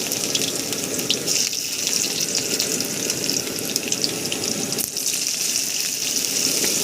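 Chopped onion and ginger sizzling steadily in hot mustard oil in a kadai, with a fine crackling running through the hiss.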